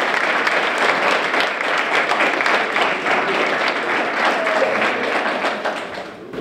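Audience applauding: many people clapping together, dying away just before the end.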